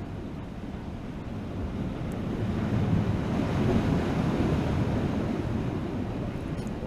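Ocean surf washing against jetty rocks, swelling to a peak about halfway through and then easing off, with wind buffeting the microphone.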